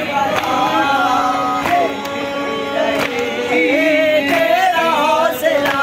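A group of men chanting a nauha, a Shia mourning lament, with a sharp slap every second or so in time with the chant, as in matam chest-beating.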